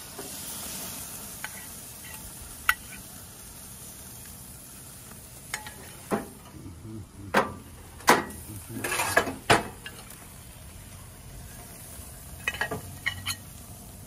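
Beef steaks sizzling on a gas grill, a steady hiss, broken by a dozen or so sharp clinks of a metal meat fork on the grate and ceramic plates being set down, most of them around the middle and a quick cluster near the end.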